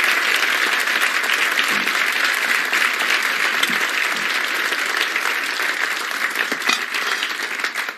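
Studio audience applauding: dense, steady clapping that tapers off near the end.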